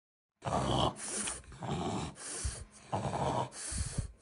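Stertor: noisy, snoring-like breathing from a partly blocked upper airway at the nose or back of the throat, heard on both the in-breath and the out-breath. It starts about half a second in and runs as a quick series of about six breaths.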